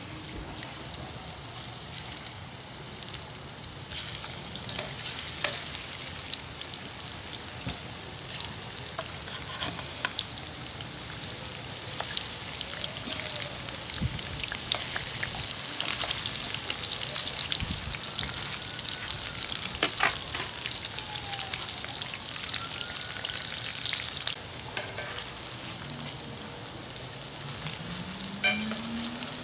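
Battered onion rings deep-frying in hot oil in a chicken fryer pot: a steady sizzle with scattered pops and crackles.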